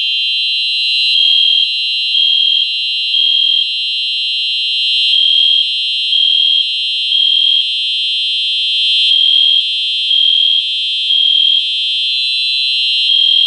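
Fire alarm notification appliances, including a Simplex 4903-9241, sounding in alarm after the pull station has been pulled. A high electronic horn tone sounds continuously, and over it a horn pulses in the temporal-three evacuation pattern: three beeps, a pause, repeating.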